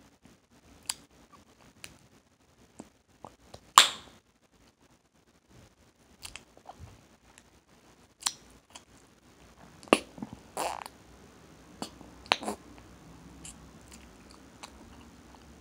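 Open-mouthed chewing of Hubba Bubba bubble gum, with scattered sharp gum cracks and lip smacks. The loudest crack comes about four seconds in, and several more follow between ten and thirteen seconds.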